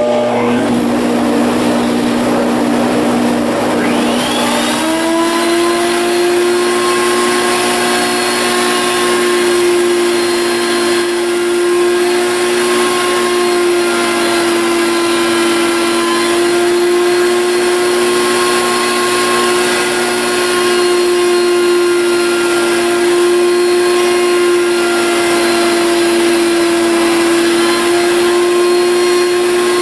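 Table-mounted router switched on: it comes up with a lower hum and rises in pitch about four seconds in to a steady high whine, then runs at full speed while its spiral bit takes light nibbling cuts in a wooden workpiece.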